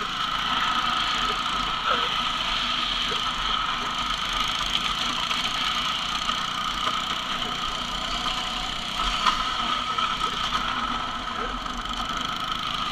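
Dirt bike engine running steadily at low speed, towing a plastic ride-on toy Jeep, with a steady rolling rumble from the toy's plastic wheels on asphalt.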